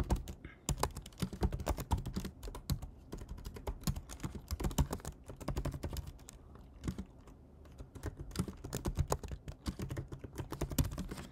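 Typing on a computer keyboard: a steady run of key clicks as a terminal command is entered.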